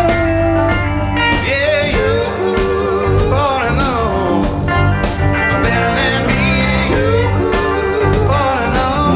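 Live blues-rock band playing: drums, bass, guitars and keys with a steady beat, under a lead melody that bends and wavers in pitch.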